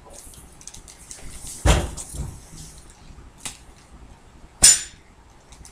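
Close handling noises: a dull thump with a rustle about two seconds in, a few small clicks, and a sharp click with a short ring a little before the end.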